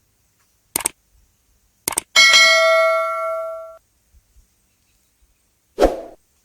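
A bell-like metallic ding that rings for about a second and a half and fades out, preceded by two short clicks and followed near the end by a dull thump.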